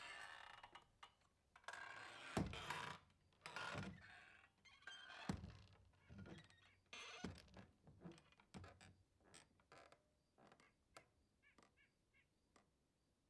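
Saloon-style swinging doors creaking on their hinges and knocking as they swing back and forth. The creaks and knocks grow smaller and fainter until the doors settle near the end.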